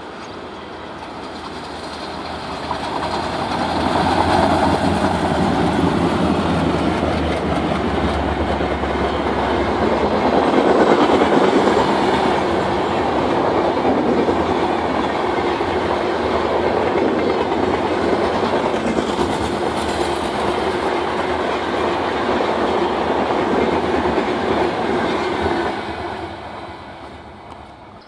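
Twin WDG 3A ALCO diesel locomotives passing close at speed with their engines working, followed by the passenger coaches rolling past. The noise builds over the first few seconds, stays loud, and dies away near the end.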